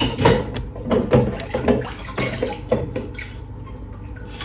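Metal mesh sieve being shaken over a stainless steel mixing bowl to sift dry ingredients into the batter, giving short uneven strokes about three times a second.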